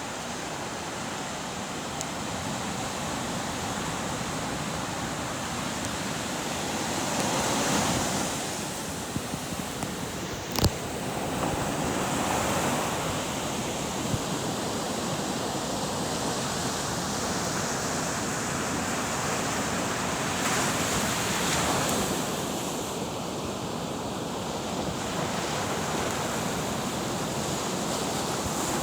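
Ocean waves washing in slow swells of rising and falling noise, with a single sharp click about ten seconds in.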